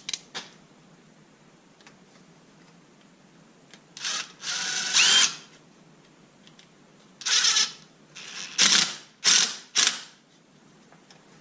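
Power drill running in short bursts while fastening a metal clamp that holds PEX tubing: one run of about a second, then four shorter bursts a few seconds later, after a couple of light clicks at the start.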